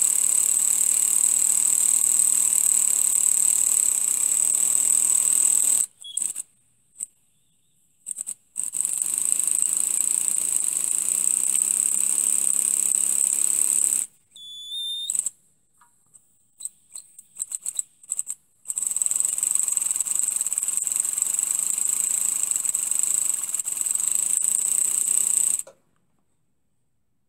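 Miniature three-cylinder steam engine running fast on compressed air, a steady high hiss of exhausting air. It runs in three spells of several seconds, with short pauses holding a few light clicks while the reversing lever is worked, and stops about 26 seconds in.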